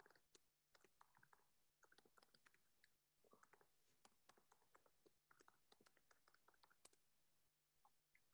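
Very faint computer keyboard typing: a quick, uneven run of key clicks that thins out near the end.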